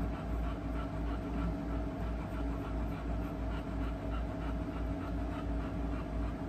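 Dog panting heavily in an even rhythm, about three breaths a second, over a faint steady hum.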